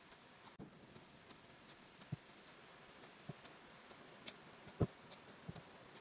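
A hand-held stick digging into stony, leaf-strewn ground: faint, irregular dull knocks and light clicks, about one a second, the loudest a little before the end.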